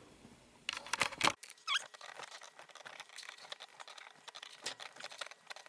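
Light clicks, taps and a short squeak of hands working with plumbing fittings and hoses, with a few louder knocks in the first second and a half.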